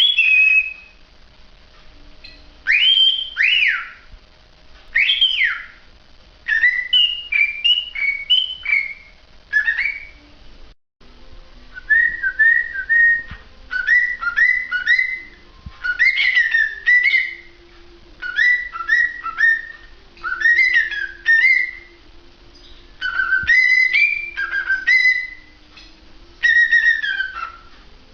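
Cockatiel whistling: short phrases of clear whistled notes that glide up and down, repeated again and again with pauses of a second or two between them.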